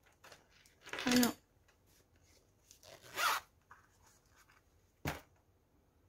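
A stylus pen being picked up and handled: a short scraping rustle about three seconds in and a single sharp tap about five seconds in. A brief voiced hum comes about a second in.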